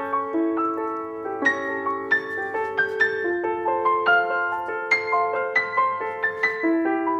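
Background piano music: single notes and chords struck about two a second.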